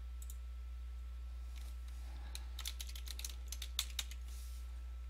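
Computer keyboard typing: a quick run of key clicks in the second half, with a few scattered clicks earlier, over a steady low electrical hum.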